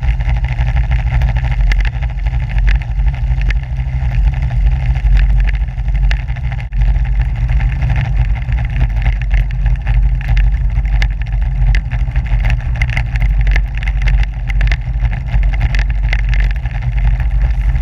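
ATV engine running steadily, with frequent short knocks and rattles over it.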